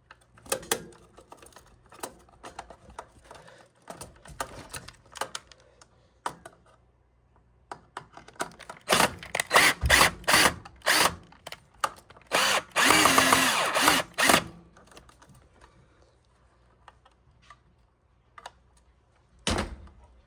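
Power drill run in several short bursts, then one longer run of about two seconds, while a horn strobe is being mounted. Scattered clicks and knocks of handling parts come before it, and a single knock comes near the end.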